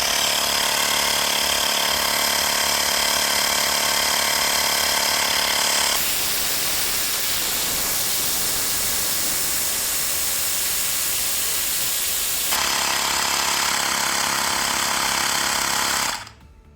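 Xiaomi Mi portable electric air compressor running, a loud, steady buzzing drone from its small piston pump as it inflates a tyre from 19 to 28 psi. For several seconds in the middle the sound turns rougher and noisier. It cuts off abruptly near the end, where the pump shuts itself off on reaching the preset 28 psi.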